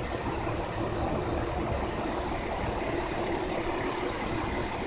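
A vehicle engine idling: a steady, even rumble with no change.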